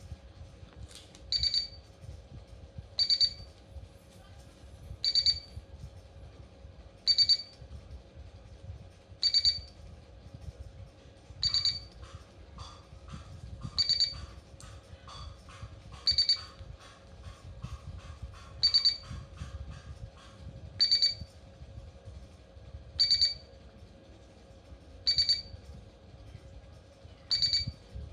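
Spot welder beeping: a short, high electronic beep repeating about every two seconds over a faint steady hum, with a run of quick faint clicks in the middle.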